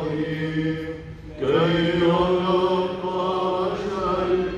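Maronite liturgical chant in Arabic, a voice singing a melodic line over a steady held low note, breaking off briefly about a second in before resuming.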